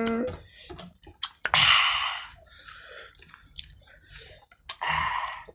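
Close-up eating sounds: chewing and fingers working through rice on a tray, with soft clicks. Two loud breathy huffs of air come about a second and a half in and again near the end.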